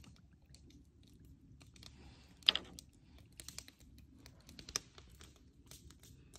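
Faint scattered clicks and small handling noises from a food jar and its almond milk carton being handled. One louder short sound comes about two and a half seconds in, and a few sharper clicks come later.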